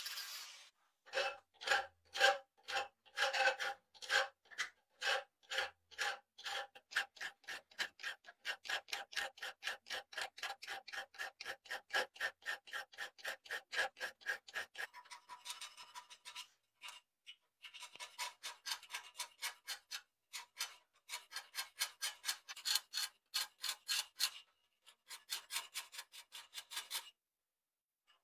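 Hand file rasping back and forth along a rusty steel sword blade, in rhythmic strokes that speed up from about two to about five a second. Each stroke carries a ringing tone, and the filing breaks off briefly twice.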